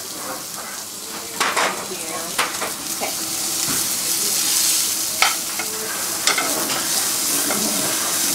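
Sliced red onion sizzling as it sautés in hot vegetable oil with curry leaves and mustard seeds in a frying pan, a steady hiss. A metal spoon stirring it clinks and scrapes against the pan four times.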